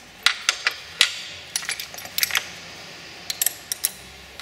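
Sharp metal clicks and clinks as a negative battery cable terminal is refitted and fastened onto the battery post of a pickup: a dozen or so irregular taps, thickest in the first couple of seconds, with a few more near the end.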